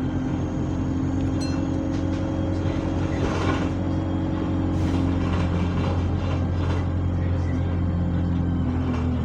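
Diesel bus engine running steadily, heard from on board, with a constant low hum and no change in pitch.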